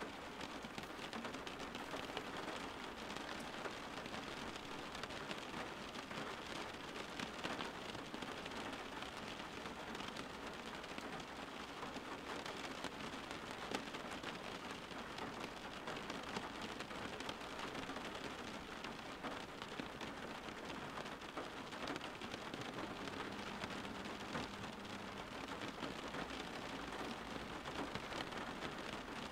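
Steady rain: a continuous, even hiss of falling rain with many small drop ticks.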